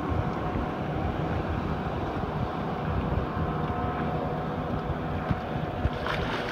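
Steady rumble of a boat motor mixed with wind on the microphone. About six seconds in, a hooked channel catfish splashes at the surface beside the boat.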